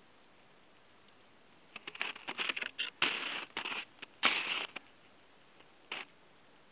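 Footsteps crunching on crusted snow, with a cluster of short, irregular crunches from about two to five seconds in and one more near six seconds. Between them it is nearly silent.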